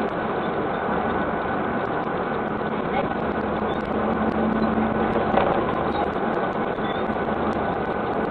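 Steady car engine and road noise inside a car's cabin, with a faint constant hum and no sudden events.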